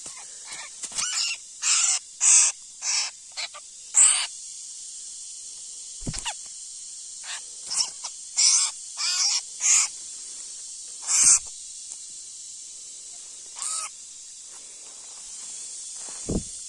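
A bird giving loud, harsh calls over and over: a quick run of calls, a second run a few seconds later, then single calls. Two short, dull thumps sound, one about six seconds in and one near the end.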